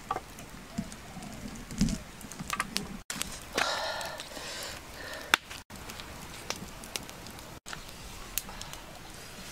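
Handling noises: scattered light knocks and a low thud about two seconds in, then a second or so of rustling as whole fish are moved about in a wicker basket. Faint bird chirps sound behind.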